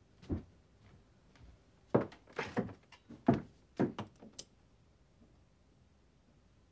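A door being opened: a series of short knocks and thuds, the loudest clustered from about two to four seconds in.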